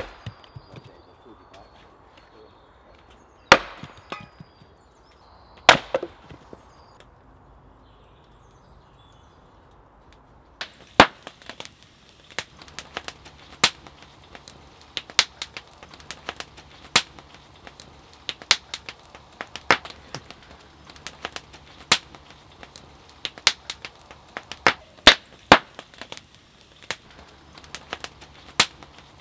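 An axe splitting firewood on a chopping block: three sharp strikes in the first six seconds. From about eleven seconds in, a wood fire crackles and pops steadily.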